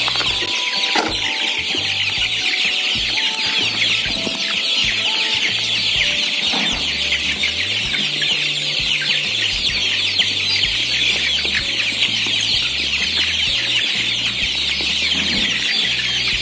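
A large flock of young kampung super chickens peeping, a dense, unbroken high-pitched chorus as they crowd the feeder and clamour for food.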